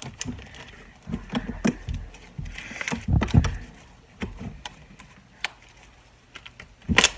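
Slime being mixed and kneaded by hand in bowls, giving irregular soft thumps, taps and sticky handling noises, with a quick cluster of sharp clicks near the end.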